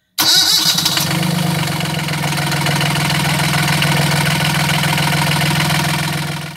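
Volvo Penta marine diesel engine starting, then running steadily at idle, heard close up in the engine bay. This is a test run after the raw-water pump impeller cover was refitted with a new O-ring. The sound cuts off suddenly near the end.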